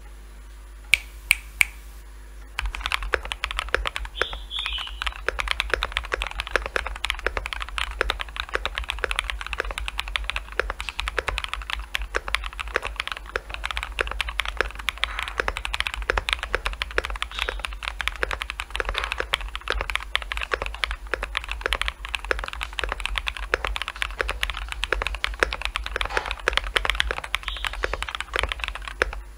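Nook75 aluminium mechanical keyboard with BSUN Bubble switches, an aluminium plate, case and plate foam and MW Retro Light keycaps, being typed on. A few separate key clicks come first, then about two and a half seconds in steady, fast typing begins.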